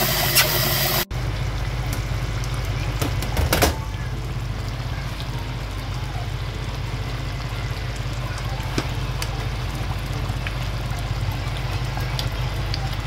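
Tap water running into a pot of rice being rinsed, cut off abruptly about a second in. Then a pot of chicken in tomato sauce simmering, with scattered small pops over a steady low hum, and a brief louder noise about three and a half seconds in.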